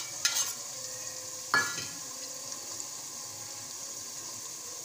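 Chopped onions, tomatoes and green chillies sizzling steadily in hot oil in a metal pot, with a short scrape just after the start and one sharp clink about a second and a half in.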